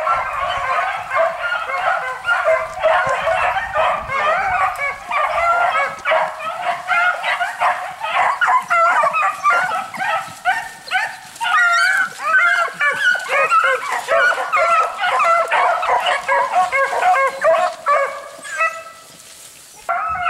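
Hunting hounds baying and yelping in full cry on a hare's trail, several voices overlapping; near the end the cry thins to a few single calls and fades.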